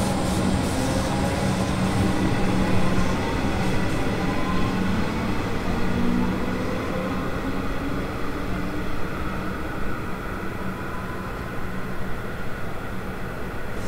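Comeng electric suburban train pulling away from the platform, with steady running noise and a faint rising whine from its traction motors as it gathers speed, growing a little fainter as it draws away.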